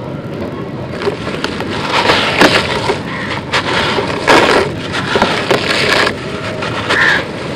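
Dry, crumbly concrete being crushed and crumbled in bare hands: a run of gritty crunches and crackles at irregular intervals as lumps break apart and loose grit shifts.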